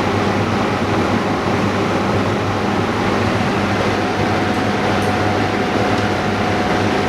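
Steady mechanical hum of running workshop machinery, with a faint high whine that holds from about four seconds in.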